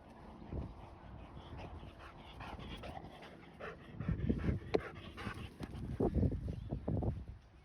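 A dog panting, getting louder about halfway through with a run of quick breaths.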